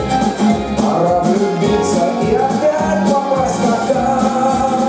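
Upbeat pop song with a steady beat.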